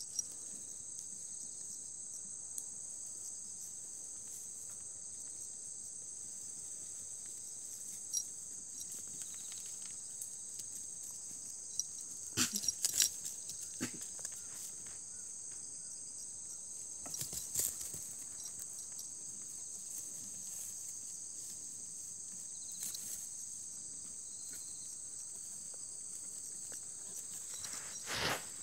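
Steady, high-pitched chorus of insects chirring without a break. A few brief clusters of rustling clicks break in, the loudest about twelve seconds in.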